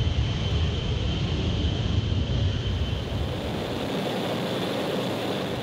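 B-52 Stratofortress bomber's eight jet engines at takeoff power during the takeoff roll: a loud, steady jet noise with a deep rumble and a steady high whine. The deep rumble thins out about three and a half seconds in.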